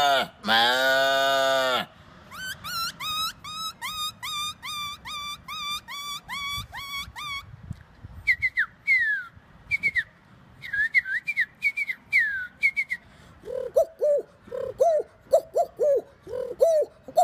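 A man imitating animals with his voice. A loud, drawn-out moo-like call ends about two seconds in. A run of quick rising whistled bird chirps follows, about two a second, then scattered falling whistles. Near the end comes a lower, faster series of pigeon-like coos.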